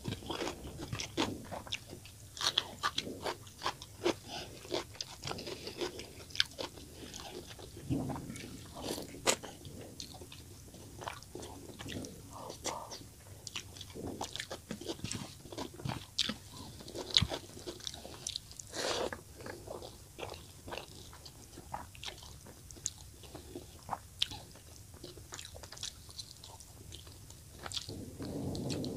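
Close-miked chewing and wet mouth sounds of a person eating rice and fish curry by hand: a steady irregular run of short smacking and sticky clicks, with the squish of fingers mixing rice into curry.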